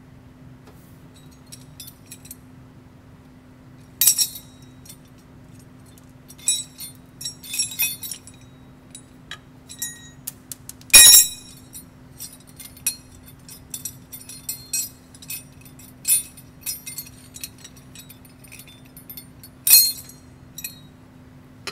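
Metal clinks and rattles of a steel mounting bracket and small bolts being handled and tried against a truck APU's exhaust pipe, in scattered short strikes. The loudest clank comes about eleven seconds in. A faint steady low hum runs underneath.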